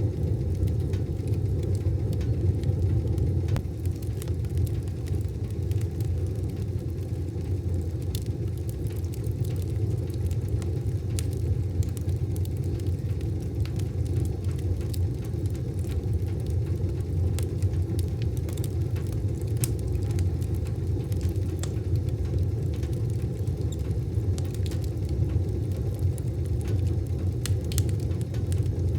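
Wood fire burning in a wood stove: a steady low rumble with scattered sharp crackles and pops throughout.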